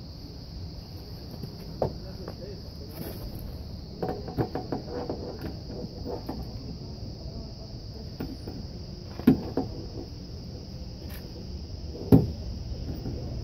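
Hands working on the bare inner frame of a Honda CR-V front door: scattered light clicks and rattles of plastic and sheet metal, with two sharper knocks about nine and twelve seconds in. A steady high insect chirring runs underneath.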